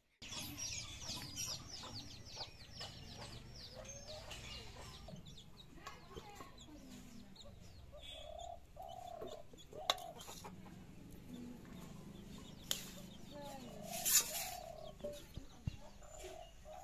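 Chickens clucking in short calls through the second half, after a rapid run of high chirps in the first few seconds. A few sharp clinks of a steel spoon on steel bowls, the loudest about two-thirds of the way in.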